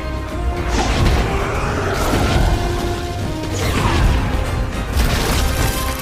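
Dramatic orchestral film score over heavy crashing impacts and whooshes from a battle scene.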